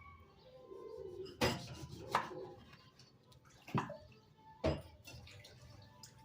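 Kitchenware being handled: four sharp clinks and knocks spread over a few seconds.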